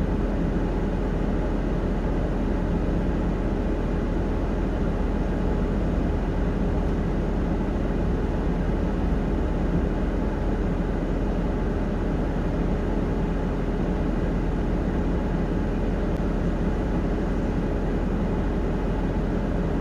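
A vehicle engine idling steadily, with no change in speed.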